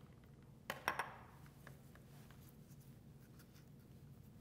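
A small glass bowl set down on a stone countertop: two quick knocks close together about a second in, then faint room tone with a low steady hum.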